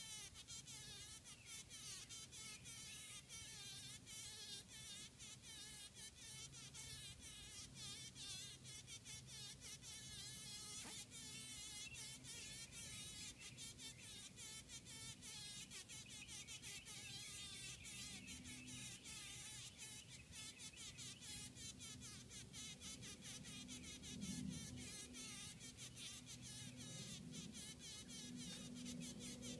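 Honey bee buzzing faintly and unsteadily, its pitch wavering, as it struggles while entangled in a spider's web. Many quick ticks run through the buzz.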